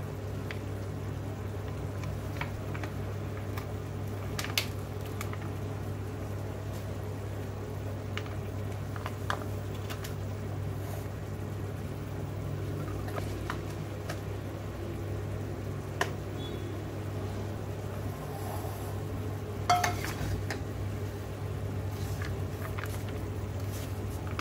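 Ready-meal pouches handled and lentil soup poured from a pouch into a stainless steel pot, with a few sharp knocks of cookware on the counter, the loudest about twenty seconds in. A steady low hum runs underneath.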